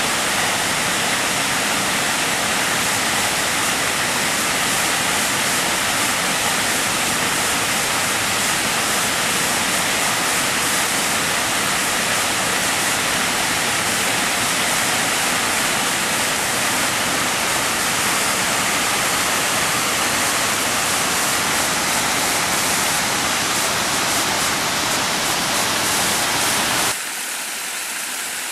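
Waterfall: a steady, loud rush of falling water. Near the end it cuts abruptly to a softer, thinner water sound.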